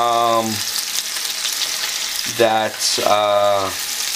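Meatballs sizzling in hot oil in a nonstick frying pan as they brown, with a spoon turning them over against the pan.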